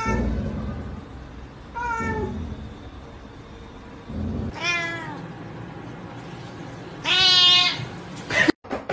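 An orange tabby cat meowing four times, each call bending down in pitch, the last one the loudest and longest.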